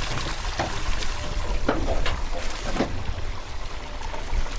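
Sea water splashing and sloshing beside a small boat, with a few short sharp splashes or knocks and a low wind rumble.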